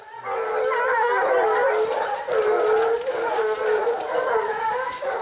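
A pack of Basset Bleu de Gascogne hounds baying in chorus, many voices overlapping, as they hunt hare on the scent line.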